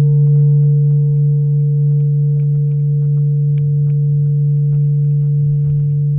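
A deep, steady ringing tone that starts suddenly just before and holds with little decay. A few higher overtones fade out within the first three seconds, leaving the low tone.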